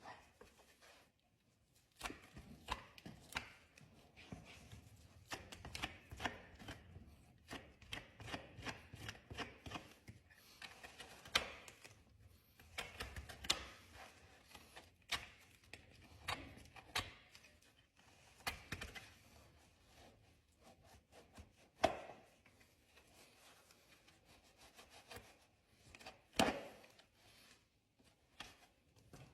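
Hoof trimming tools working on a horse's hoof: irregular sharp cutting snaps and scraping clicks, several a second, with a few louder snaps.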